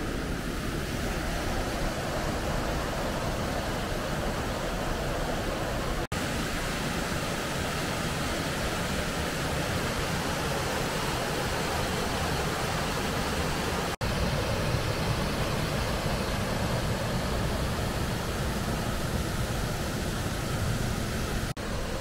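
Steady rushing of a waterfall and fast river water, cut off for an instant three times: about six seconds in, about fourteen seconds in, and near the end.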